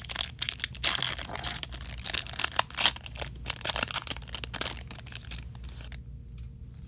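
Foil trading-card pack wrapper crinkling and tearing as it is ripped open, a dense crackling that stops abruptly about six seconds in.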